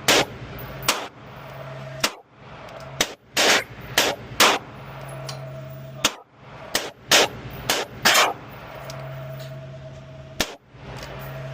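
Pistol shots fired in uneven strings, about fifteen sharp reports, several coming two or three to the second, some louder and some fainter, over a steady low hum.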